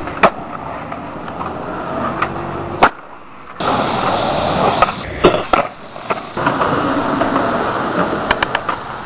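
Skateboard wheels rolling on concrete, broken by sharp clacks of the board popping and landing, with a quick run of clacks near the end.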